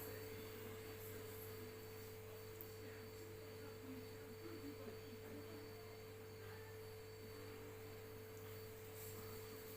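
Faint, steady hum with a constant mid-pitched tone over a low drone and a light hiss, holding even throughout.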